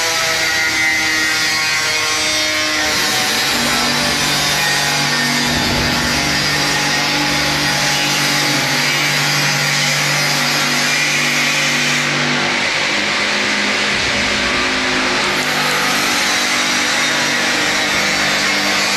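Steady din of metal-fabrication shop machinery running: a machine hum that shifts pitch every few seconds over a constant hiss.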